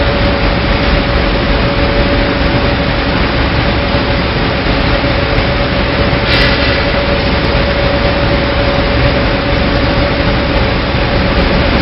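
Rotary drum dryer running while palm fiber tumbles inside: a steady, loud machine noise with a constant hum, and a brief higher-pitched screech about six seconds in.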